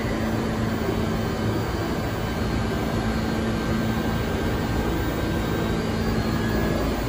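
New York City Subway (A) train car standing at a station platform, its air-conditioning and onboard equipment running as a steady hum with a low tone.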